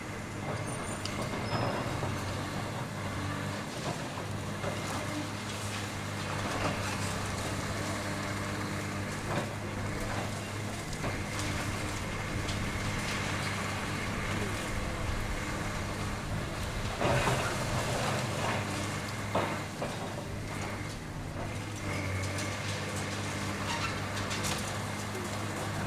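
Heavy demolition machinery running, its diesel engine a steady low hum, with irregular crashes and clanks of debris; the loudest crashes come about 17 and 19 seconds in.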